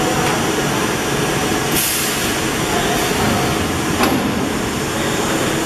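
High-frequency PVC tarpaulin welding machine at work: a steady mechanical noise, with a short burst of hissing about two seconds in and a sharp click about four seconds in.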